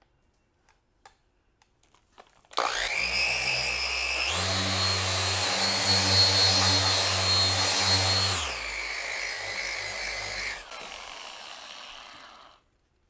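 Porter Cable dual-action polisher with a black finishing pad, switched on about two and a half seconds in for a refining pass on car paint. It steps up to a higher speed with a steady whine about four seconds in, drops back after about eight seconds and winds down to a stop near the end.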